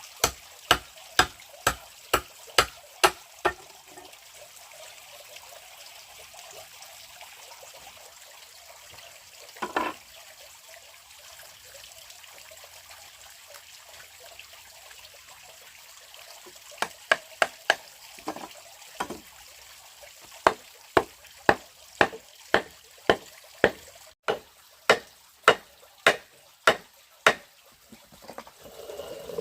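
Sharp, evenly spaced strikes, about two a second, in runs of several with long pauses between. Underneath runs a steady trickle of flowing water.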